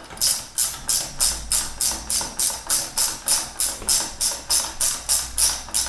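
QU-AX 10 mm ratchet tightening a unicycle wheel screw: a steady back-and-forth ratcheting, each stroke a short burst of metal clicks, about three strokes a second.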